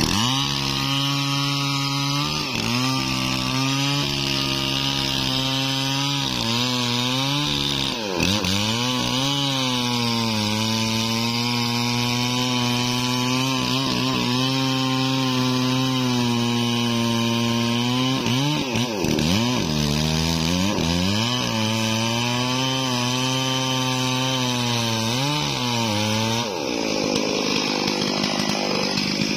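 Stihl MS 440 two-stroke chainsaw at full throttle cutting into a durian tree trunk, its engine pitch dipping and recovering several times as the chain bites into the wood. Near the end the high engine note drops away.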